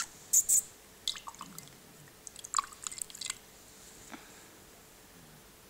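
Cat playing with water in a drinking glass: a run of quick wet clicks and drips over the first three seconds or so.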